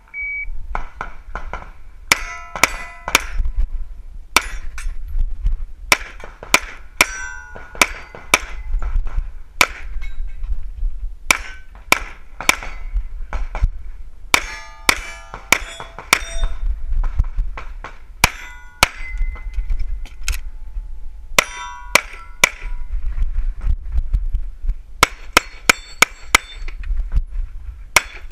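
Pistol fired in quick strings of several shots, many of them followed by the ringing clang of steel targets being hit.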